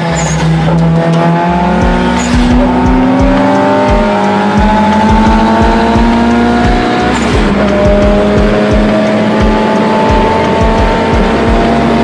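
A car engine pulling hard at speed, its pitch climbing slowly and dropping twice at gear changes, with music that has a steady beat underneath.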